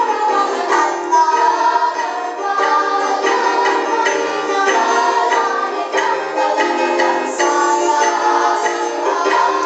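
A children's choir singing a song to a rhythmic instrumental accompaniment, led by a conductor.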